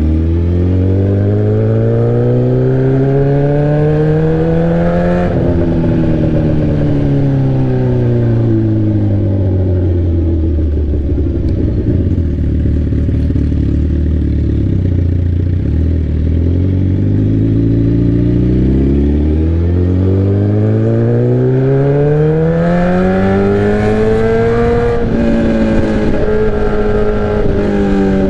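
Straight-piped sport bike engine revving up for about five seconds, then the revs wind down for about ten seconds and hold low. It pulls hard again, with another break in the revs near the end.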